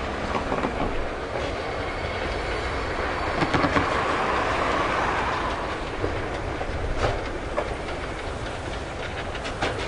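Steam tram train of wooden carriages and vans rolling past, its wheels clacking over rail joints. The running noise is loudest about halfway through, with sharp clicks scattered through it.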